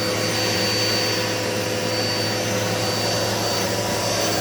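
Dirt Devil Multi-Surface upright vacuum cleaner running steadily: an even motor whine with a rush of air.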